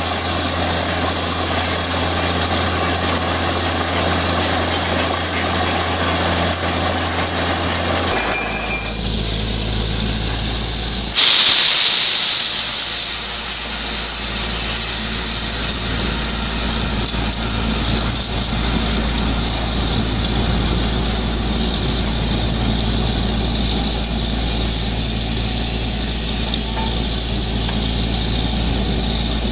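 Borewell drilling rig's engine and air compressor running steadily, the engine note dropping about 8 seconds in. About 11 seconds in, a loud rush of hissing air lasts about two seconds before the steady running goes on.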